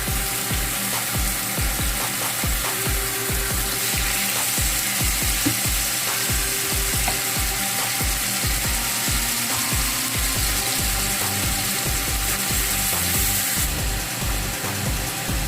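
Marinated chicken frying in a pan of hot oil, a steady sizzle, with a regular low pulse of about three beats a second underneath.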